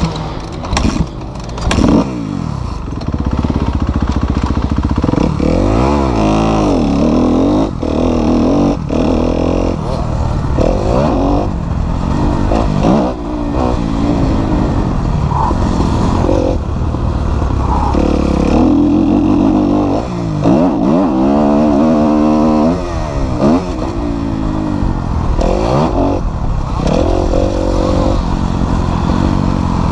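Kawasaki KX250F motocross bike's four-stroke single-cylinder engine being ridden hard around a dirt track. It revs up and falls back over and over as the rider accelerates and backs off.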